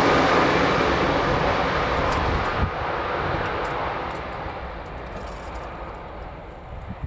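JR Shikoku 8000 series electric train running away into the distance, its rolling noise fading steadily with the high end dying away first. One sharper clack of wheels over the rail comes about two and a half seconds in.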